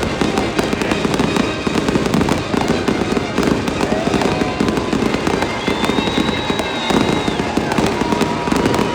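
Fireworks show going off in a rapid, continuous barrage of bangs and crackles.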